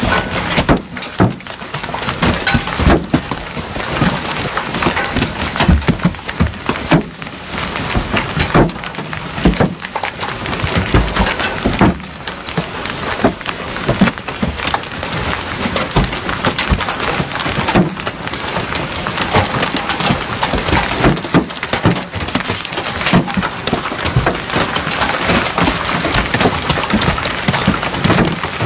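Heavy hailstorm: hailstones clattering down thick and fast, a dense run of sharp hard impacts over a steady rush of rain.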